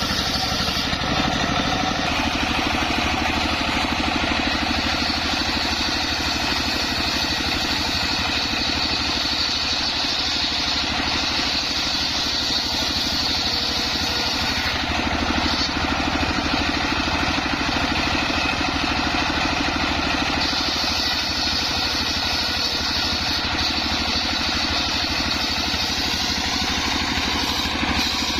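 Homemade engine-driven circular saw running steadily while sawing coconut-palm wood; the engine holds an even pace under a high whine that grows stronger for long stretches and eases off in between.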